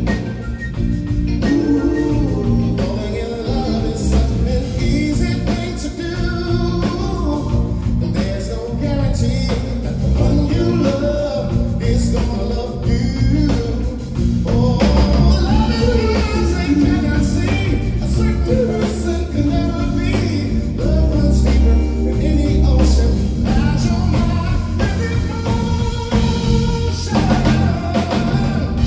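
A soul vocal group singing with a backing band of bass, drums and guitar.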